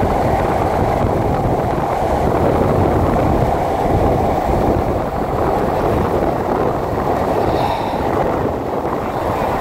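Steady rush of wind on the microphone of a cyclist riding at speed in a road-bike pack, mixed with the hum of bicycle tyres on asphalt.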